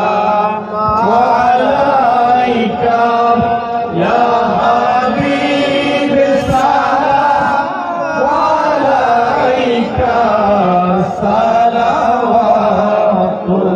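A group of men chanting an Arabic milad qiyam salutation to the Prophet together, several voices at once over a steady low tone.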